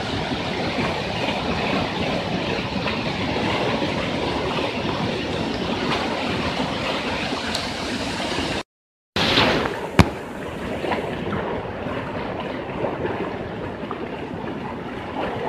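Rushing floodwater running down a street, a steady loud noise. The sound cuts out for about half a second about two-thirds of the way through, then resumes with a single sharp click.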